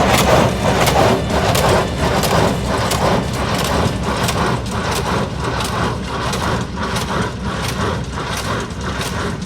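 Tractor-driven hay baler running: an engine's steady rumble under a rhythmic mechanical clatter of about two to three strokes a second.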